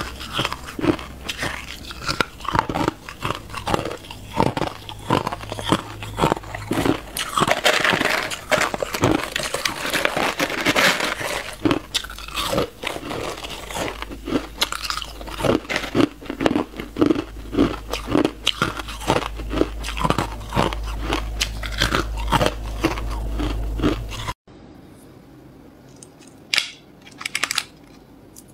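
Crushed ice being bitten and chewed close to the microphone: dense, continuous crunching and crackling. About 24 s in it cuts off suddenly, leaving only a few fainter crunches and clicks of clear ice cubes.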